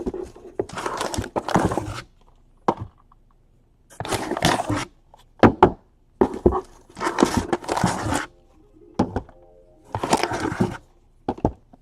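Trading-card boxes and packs being handled and opened: bursts of rustling, crinkling packaging with a few sharp clicks and knocks.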